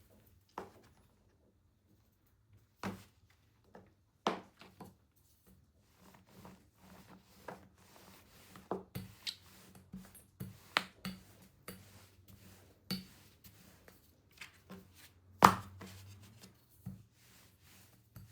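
Irregular taps and knocks of kitchen work on a board or counter, sparse at first and then quicker. The loudest thump comes near the end.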